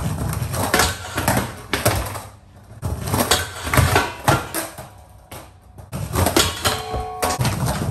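Skateboard wheels rolling on smooth concrete, with repeated sharp board clacks and knocks against a low metal flat bar during nollie smith grind attempts. The noise comes in loud stretches with quieter gaps between them.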